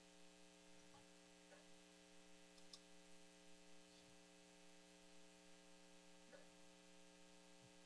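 Near silence: a faint steady electrical hum with a few faint, scattered clicks.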